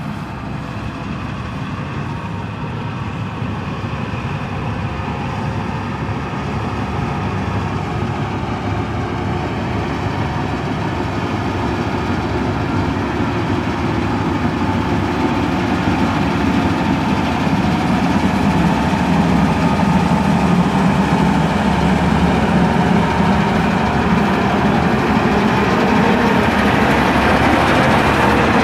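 Combine harvester running as it harvests wheat: a steady drone from its engine and machinery that grows louder as the machine comes closer.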